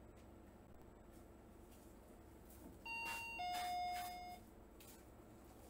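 An electronic two-note chime about three seconds in: a short higher note drops to a lower note that is held for about a second. Apart from that there is only faint room tone.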